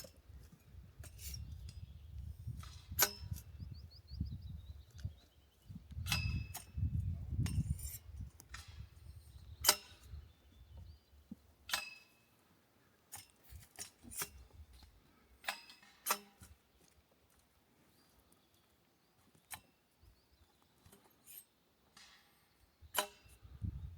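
Irregular sharp clicks and knocks, some with a brief metallic ring, over a low rumble that fades out about halfway through.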